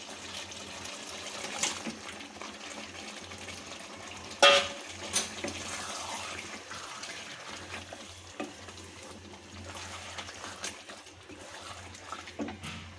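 Pre-boiled mutton pieces going into a pan of hot fried yogurt masala: a steady sizzle, with a few sharp clinks of a utensil against the pan. The loudest clink comes about four and a half seconds in.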